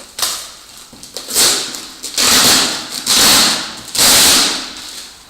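Shipping package being handled and unwrapped: a short scrape, then three longer, loud, hissy scraping sounds one after another.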